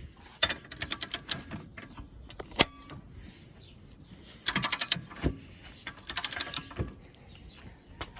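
Impact wrench hammering in three short bursts of rapid blows while trying to break loose a bolt torqued to 150 foot-pounds, with a single sharp snap between the first two bursts.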